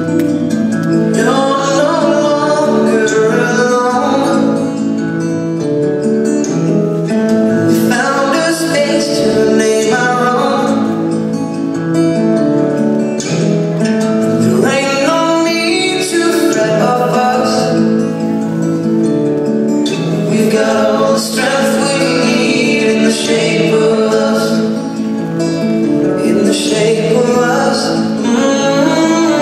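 A recorded song playing: a singer over sustained instrumental chords.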